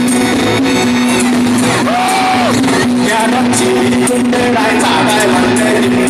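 Taiwanese rock band playing live at full volume: a steady held low note underneath, with short sung or shouted vocal phrases over it, one brief held note about two seconds in.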